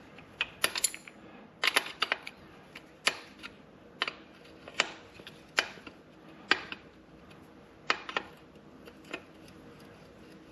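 Wrenches working the chain adjuster nuts on a Kawasaki KLR 650: sharp metal clicks, roughly one a second, with several close together near the start.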